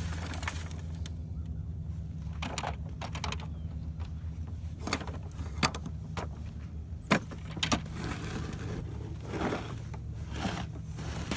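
Scattered clicks and clanks from a ride-on toy backhoe's bucket and levers as it digs in sand, over a steady low hum.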